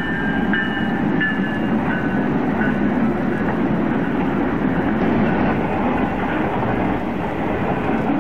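HO-scale model Rio Grande diesel locomotive and cabooses passing, with a steady running rumble. A bell rings about every half second in the first three seconds, fading out.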